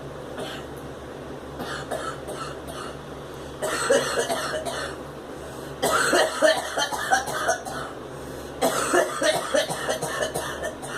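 A girl coughing from smoke inhalation while smoking: three fits of rapid, repeated coughs, the first starting about three and a half seconds in and the loudest about six seconds in, with a few fainter coughs before them.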